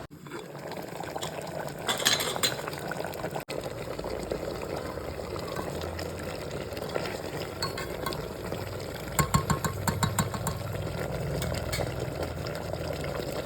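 Hydrafacial machine's small pump running steadily with liquid gurgling through it, with a few clusters of clicks about two seconds in and again around nine to ten seconds.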